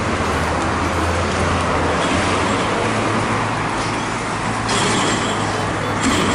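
Road traffic on a busy street: motor vehicles running past in a steady wash of noise, with a low engine hum that eases after about two seconds.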